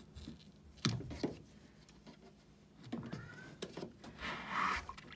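A hand working inside the plastic drain-pump filter housing of a front-loading washing machine, trying to free a paint roller lodged in the drain. It gives two sharp clicks about a second in, a brief squeak about three seconds in and some rubbing near the end.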